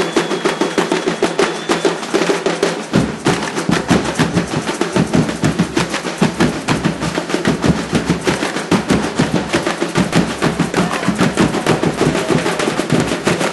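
Samba batucada: a drum band playing a fast, driving samba rhythm of snare and hand-percussion strikes, with deep bass drums joining about three seconds in. A thin high held tone sounds over the drumming during the first two seconds.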